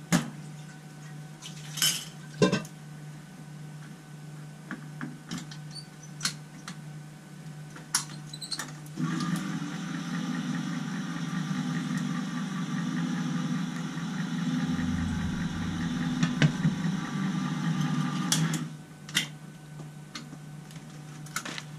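Electric can opener running steadily for about nine seconds as it cuts around a can of cranberry sauce, starting near the middle. Before it come a few metal clinks and knocks of cans being handled.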